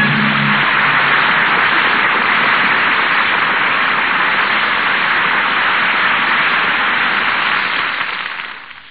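Steady hiss of static on an old 1930s radio broadcast recording, with a low tone lingering for about the first half second. The hiss fades out over the last second as the recording ends.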